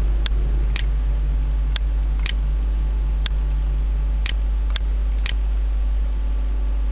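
Computer mouse clicking: about eight short sharp clicks, mostly in pairs about half a second apart, over a steady low electrical hum.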